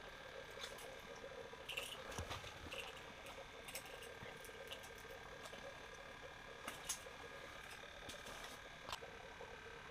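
Faint scattered clicks and light rustles of hands handling a small ice-fishing rod and line and unhooking a fish, over a steady faint hum.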